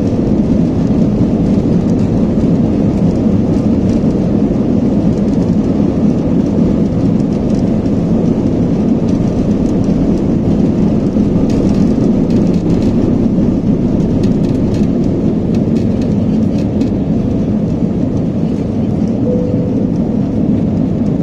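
Jet airliner's cabin during the takeoff roll and liftoff: the engines at takeoff power make a loud, steady, deep rumble together with the runway noise, with a few faint clicks about halfway through.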